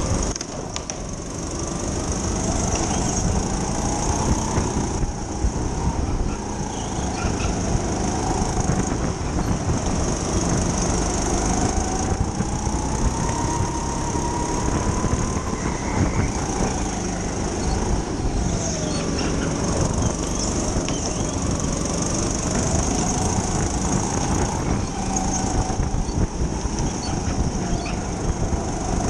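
Racing go-kart at speed, the pitch of its motor rising and falling every few seconds as it slows for and accelerates out of corners, over a heavy low rumble.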